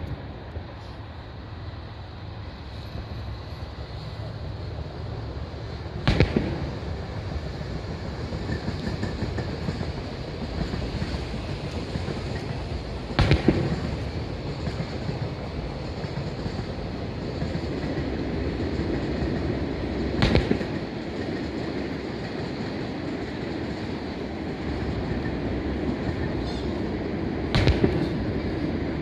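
Aerial firework shells bursting: four single loud bangs about seven seconds apart, over a continuous low rumbling background.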